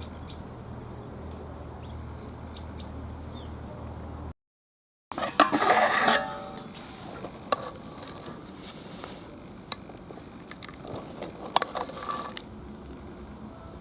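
Metal cooking pots and utensils clinking and clattering. The loudest burst, with ringing, comes just after a brief dead-silent cut about five seconds in, and scattered clinks follow. Before the cut there is only a low steady hum with faint high chirps.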